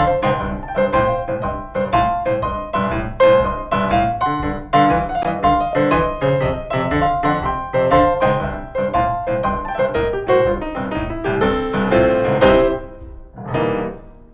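Blues piano in boogie-woogie style: a steady left-hand bass line under quick right-hand blues-scale licks. A run of rising notes leads to a final chord near the end, which rings and fades.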